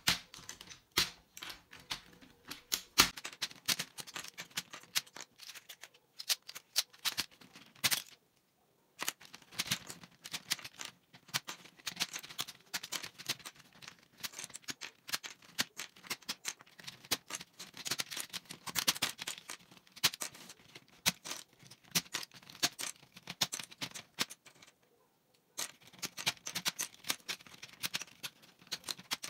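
Plastic keycaps being pried off a gaming keyboard one after another and dropped onto a pile: a rapid, irregular run of plastic clicks and clatters, pausing briefly twice.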